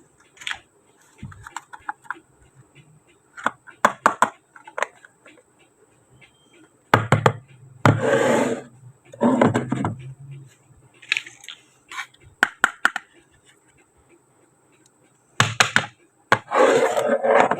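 Small plastic toy kitchen pieces being handled and set down: scattered clicks and taps, with a few longer scraping or rustling sounds of a second or two.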